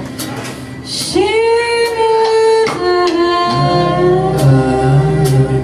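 Live experimental rock band with a woman singing long held notes, the first sliding up into place about a second in, over cymbal strokes. The bass and guitar come in heavier about three and a half seconds in.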